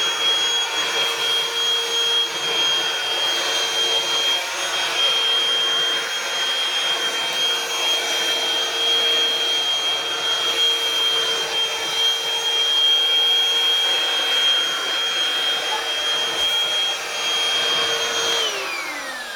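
Hoover Freedom FD22L cordless stick vacuum running steadily, a high whine over the rush of air. Near the end its motor winds down, the whine falling in pitch.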